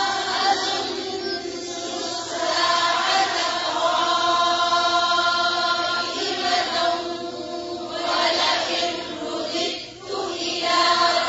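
A woman's voice reciting a Quranic verse in a melodic chant, with long held notes and a short pause near the end.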